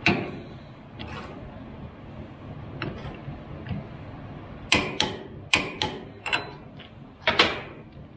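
Sharp metallic clinks and clanks of a socket and hand tools being handled against a steel vise and workbench. A few scattered clicks come first, then a quicker run of louder clanks in the second half.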